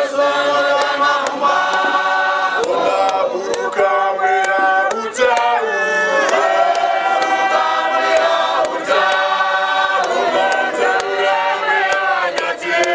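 Church choir singing a Shona hymn without accompaniment, in several parts, moving together through long held chords. Short sharp clicks sound now and then behind the singing.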